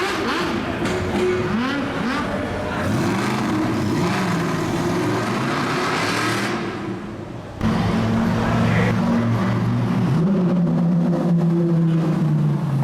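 High-performance car engines revving and accelerating through a tunnel, their note climbing and dropping through gear changes. About seven and a half seconds in the sound cuts abruptly to an engine holding a steady note that slowly falls.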